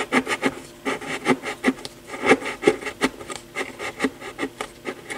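Playing-card shims scraping as they are pushed and worked into the voice-coil gap of an Altec Lansing 846B woofer, in a quick, irregular run of strokes, several a second. The shims are meant to re-centre a voice coil that rubs.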